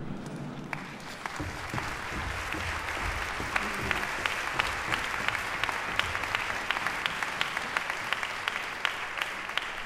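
Audience applauding, swelling over the first two seconds into steady clapping with single sharp claps standing out.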